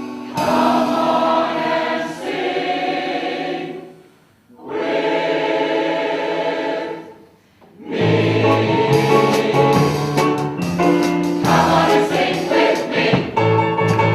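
Mixed community chorus singing held chords, breaking off twice briefly, about four and seven seconds in, then going on with a fuller sound and low voices.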